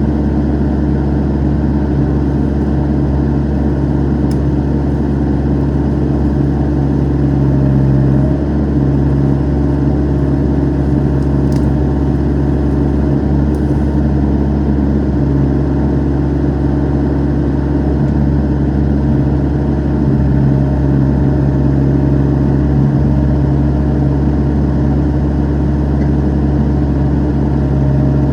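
Excavator's diesel engine running steadily at a constant pitch.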